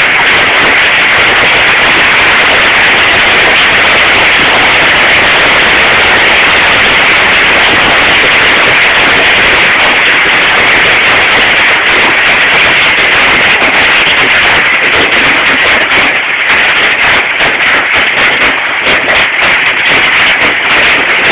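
Hail pelting down in a loud, dense, continuous clatter, recorded through a phone's microphone. In the last several seconds the hits become more separate.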